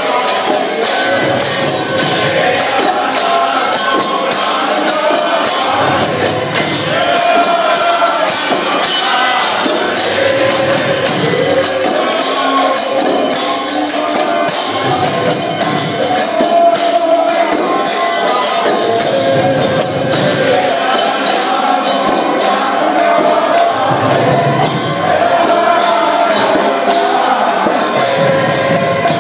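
Devotional kirtan: many voices singing together over a mridanga drum, with karatalas (small hand cymbals) clashing in a fast, steady beat.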